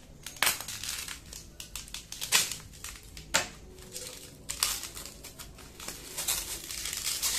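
Wrapping around a boxed processor being pulled open by hand: irregular crinkling and rustling, with several sharper crackles.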